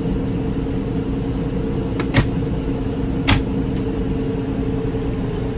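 Steady hum of the motorhome's air conditioner running, with two sharp clicks a little over a second apart near the middle as wooden kitchen cabinet doors are shut.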